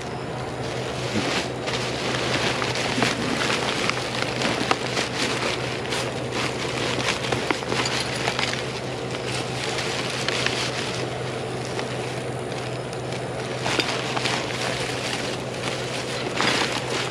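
Plastic trash bags and clear plastic wrapping rustling and crinkling as gloved hands dig through a dumpster, with many small crackles. A steady low hum runs underneath.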